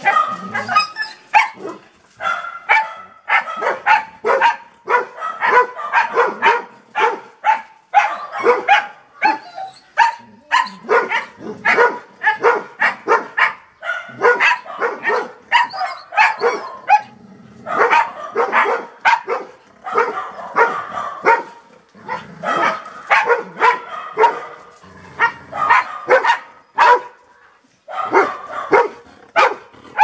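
Golden retriever barking excitedly, quick barks several a second in runs broken by brief pauses.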